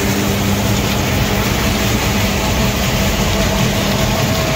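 Concrete mixer lorry running steadily while it discharges concrete down its chute: a constant engine-and-machinery drone with a steady low hum that holds an even pitch.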